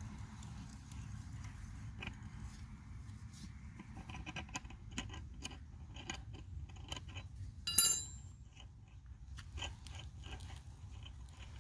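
Ratchet socket wrench clicking in short runs as a nut is tightened on a bolt through a wooden batten, with one sharp, ringing metallic clink a little under eight seconds in, the loudest sound.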